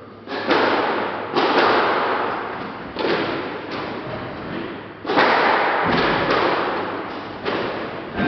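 Squash rally: the ball struck by rackets and smacking off the court walls, about ten sharp hits in eight seconds, each ringing out with a long echo in the court.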